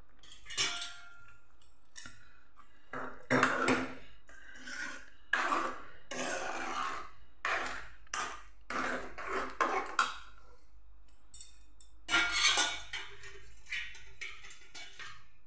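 A metal ladle stirring watery greens in a metal kadhai, scraping and clinking against the pan in a string of irregular strokes. The strokes pause about ten seconds in, and a last cluster of clatter comes about two seconds later.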